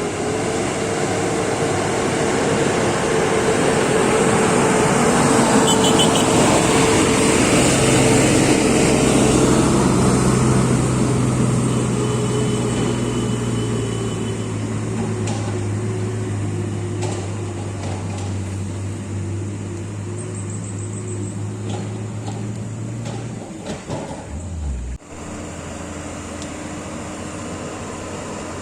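Heavy diesel engine of mining equipment running under steady load. It grows louder toward about ten seconds in and then slowly fades. The engine tone stops abruptly a few seconds before the end, and a quieter steady engine sound continues.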